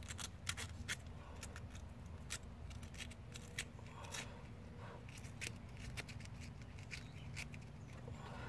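Sharp, irregular clicks and snips of a cutting hand tool working on a rusted air-conditioner wire, over a faint low hum.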